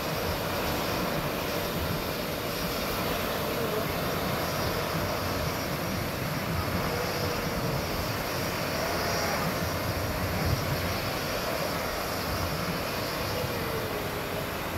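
Twin-engine jet airliner's turbofans running at low power as it taxis at a distance, a steady rushing drone with faint wavering whine. Road vehicles pass close by near the end.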